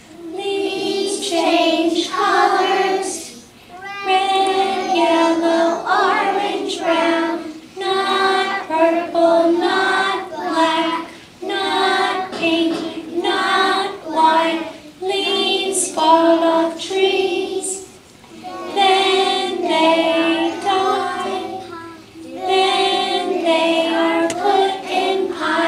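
A kindergarten class singing a song together, children's voices in unison, in short phrases with brief pauses between them.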